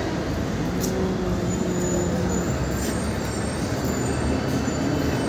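Steady rumble of motor traffic, with a low engine drone held for a second or two about a second in.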